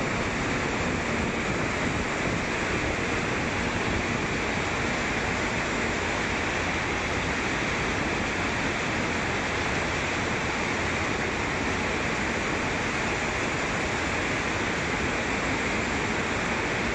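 Steady rushing noise from a running graphite flotation line: cells churning the slurry and froth, with a faint machine hum underneath.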